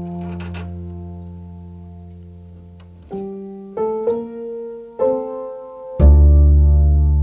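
Slow, sparse chamber-jazz playing on an upright piano with double bass: low notes and chords left to ring and die away, with new chords struck about three, four and five seconds in and the loudest, deepest one near the end.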